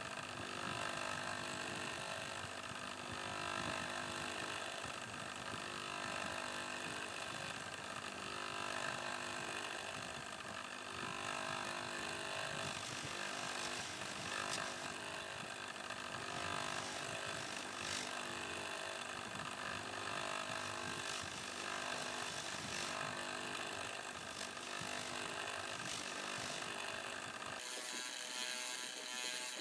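Electric motor spinning a polishing wheel while a buffalo horn jewellery piece is pressed against it: a steady motor hum under a grinding hiss. Near the end the low hum drops away.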